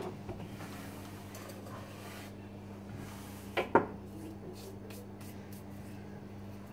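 Hands handling a wine bottle and opener tools on a wooden counter: a click, light scraping, then two sharp knocks in quick succession about halfway through, followed by a few faint ticks, over a steady low hum.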